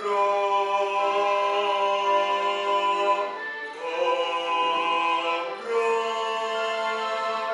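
Large mixed school choir singing sustained, held chords that change about three and a half seconds in and again near six seconds.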